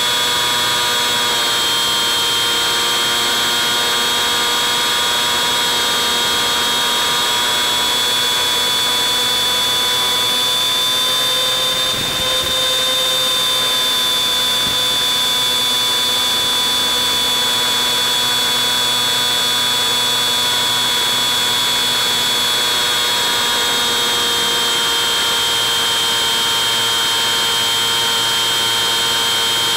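Bixler 3's electric pusher motor and propeller running steadily in flight, a constant high whine. Its pitch rises slightly about a third of the way in, with a brief dip in level, then drops a little later on as the throttle changes.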